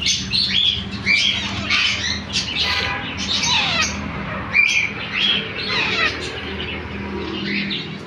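Young parakeets squawking: many short, harsh calls overlapping without a break, some falling in pitch, mixed with the chirping of other cage birds. A low steady hum runs underneath.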